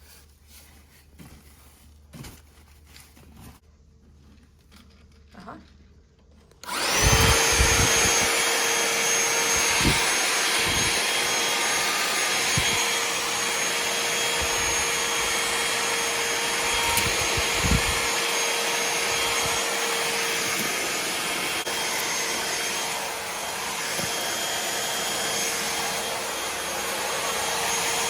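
Cordless handheld vacuum with a 500 W motor, powered by a DeWalt 20V battery, switched on about seven seconds in after a few faint clicks, then running steadily with a constant whine while it sucks up debris from floor corners. Occasional low knocks sound through the run.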